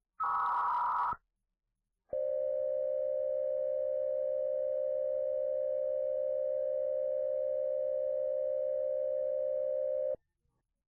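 Emergency Alert System tones: a roughly one-second warbling digital data burst, then after a short gap a steady single alert tone held for about eight seconds that cuts off abruptly.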